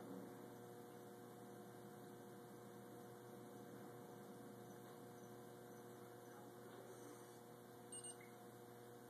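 Near silence with a steady electrical hum, and two faint clicks about eight seconds in.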